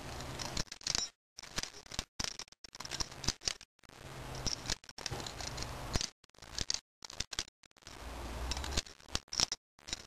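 Balisong (butterfly knife) being flipped open and shut in the hand, its handles and blade clicking and clattering against each other in quick irregular runs.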